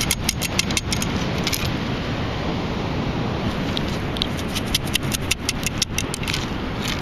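Metal beach sand scoop being shaken: sand and shell bits rattle and click against the perforated basket in two spells, one in the first second and a half and another from about halfway. Underneath is a steady rush of background noise.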